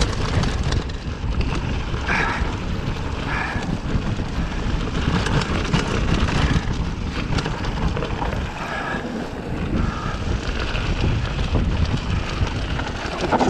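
Mountain bike (a Mongoose Teocali) descending fast on a rough dirt trail: wind buffets the camera microphone while the tyres rumble over the dirt and the bike rattles and clatters over the bumps, with the rider on the brakes.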